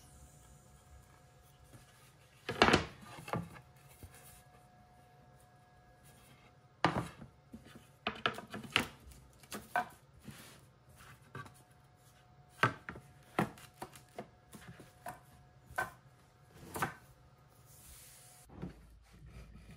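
Cherry boards with rabbeted edges being handled and laid side by side on a wooden workbench: scattered wood-on-wood knocks and clacks as they are set down and pushed together. There is a loud knock about three seconds in, and a run of further knocks from about seven seconds in.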